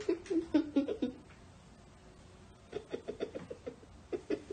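Soft giggling in short bursts: a few chuckles in the first second, a quiet pause, then a quick run of stifled laughs about three seconds in.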